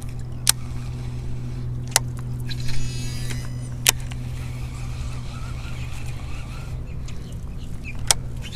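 Baitcasting reel being worked: a few sharp clicks, and a brief burst of rapid ratchet-like ticking about three seconds in, over a steady low hum.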